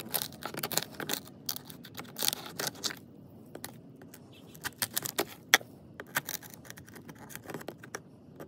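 Rotten, termite-damaged wood of a door frame being chipped and pried away with a hand tool: a fast, irregular run of cracks, snaps and scrapes as splinters break off and drop, with a short lull about three seconds in. The footage is sped up to double speed.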